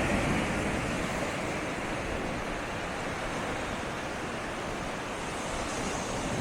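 Sea waves washing in along the shoreline, a steady rushing noise that is a little louder at the start and then eases off.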